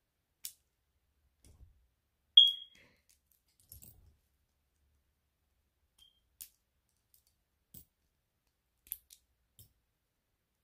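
Scattered light clicks of Lego bricks being handled, with one sharp, short high-pitched ping about two seconds in that is the loudest sound, and a much fainter one a few seconds later.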